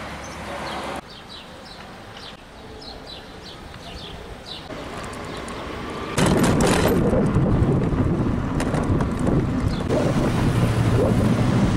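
Quiet outdoor background with birds chirping faintly, then from about six seconds in, loud wind buffeting the microphone as a low, rumbling roar.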